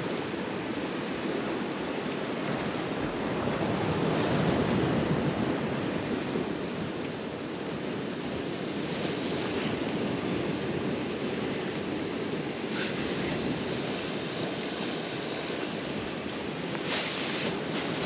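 Steady wash of the sea against a rocky shore, mixed with wind, swelling slightly a few seconds in. A few brief rustles of a sleeping bag come near the end.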